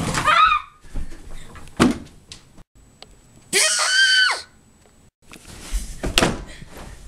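A girl screaming twice: a short wavering scream at the start and a longer, loud high scream about halfway through. A couple of dull thuds come between and after.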